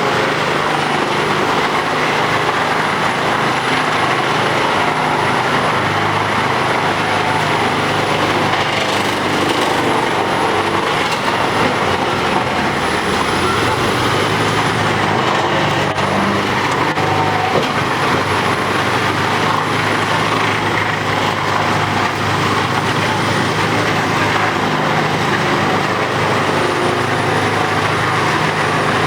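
Large wood chipper running steadily under power: a continuous engine drone with a thin high whine that comes and goes several times.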